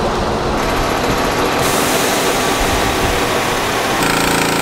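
Small gasoline engine of a pressure washer running steadily with a dense, rattling noise. About four seconds in, music with steady held tones comes in over it.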